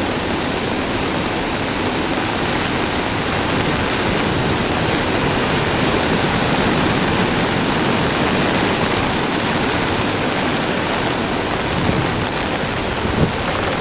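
Rough storm surf raised by an approaching typhoon: waves breaking on the shore in a steady, loud roar, with no break in the noise.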